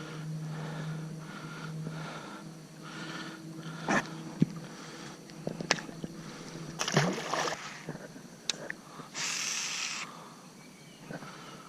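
A small boat motor hums steadily and stops about two seconds in. After that come scattered knocks and clicks on the boat and a brief rushing, splashy noise about nine seconds in.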